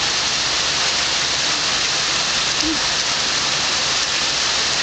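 Heavy thunderstorm rain pouring steadily, with the low hum of an air conditioner unit running underneath.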